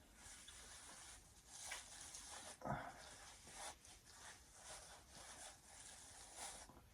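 Near silence: room tone with faint, soft rustling sounds coming every second or so.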